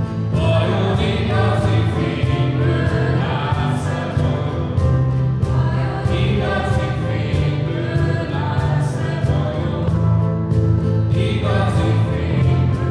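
A group of voices singing a Hungarian worship song together over a live band, with a strong bass line and a steady drum beat.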